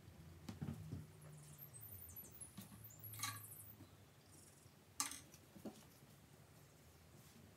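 Faint handling noises of watercolour brushes on paper: small clicks and short scratches, with one sharper click about five seconds in.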